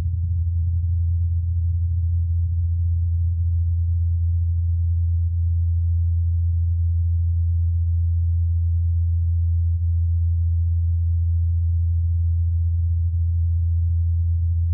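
Ingenuity Mars helicopter's rotor blades, spinning at about 2,537 rpm, giving a steady low hum with no other sound, as picked up by the Perseverance rover's SuperCam microphone.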